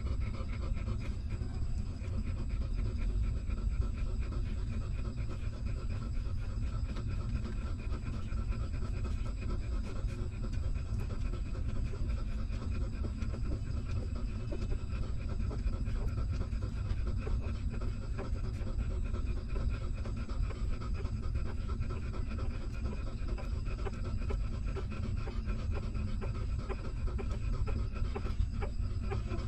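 Mother dog panting steadily while her newborn puppies nurse, over a steady low hum.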